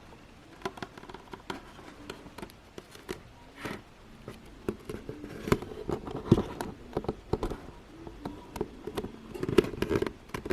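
Irregular clicks, knocks and scrapes of a hard 3D-printed plastic helmet being handled and pulled on over the head. The loudest knocks come a little past the middle and again near the end.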